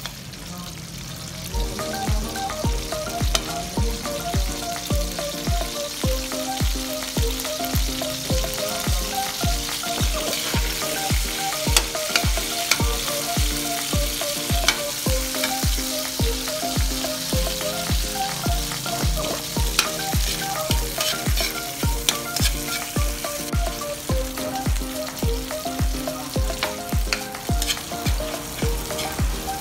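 Pork pieces and garlic sizzling in hot oil in an aluminium wok, stirred now and then with a metal spatula that scrapes and clicks against the pan. Background music with a steady beat plays throughout.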